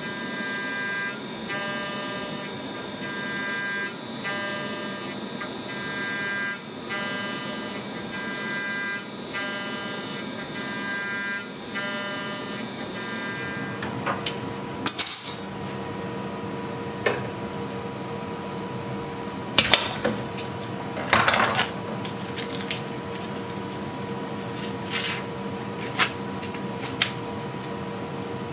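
End mill on a DIY CNC milling machine cutting a 2° bevel into aluminium washers: a steady multi-tone cutting whine with brief dips at fairly even intervals. About halfway through it stops, and aluminium parts clink and scrape a handful of times as they are handled by hand.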